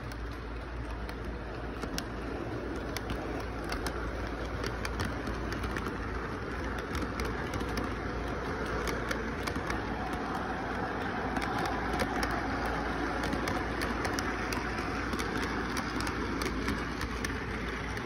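Model train running past on its track: a steady motor hum with wheels clicking over the rail joints, growing louder as the cars come alongside.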